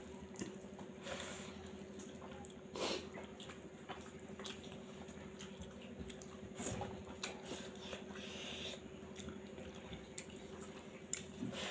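Eating sounds of rice with mushroom-and-pea gravy eaten by hand: wet chewing and mouth smacks, with fingers mixing and scraping food on a steel plate, in scattered short clicks and squelches over a steady low hum.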